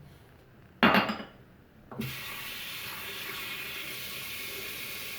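A short loud burst about a second in, then a bathroom tap turned on and water running steadily into the sink from about two seconds in.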